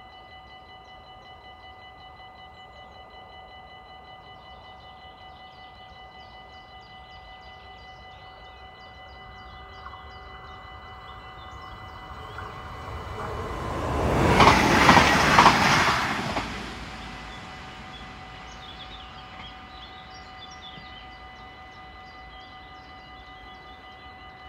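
Dutch level-crossing warning bell ringing steadily while a train approaches and passes. The train builds up from about ten seconds in, is loudest for about two seconds roughly two-thirds of the way through, then fades away with the bell still ringing.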